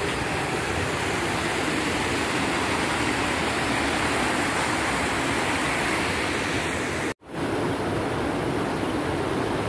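Stream water rushing steadily over boulders and rocks. The sound drops out for an instant about seven seconds in, then resumes.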